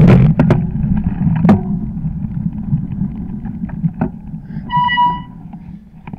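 Fat bike rolling over packed snow, the tyre rumble fading steadily as the bike slows. A few knocks from bumps, and a short squeal about five seconds in.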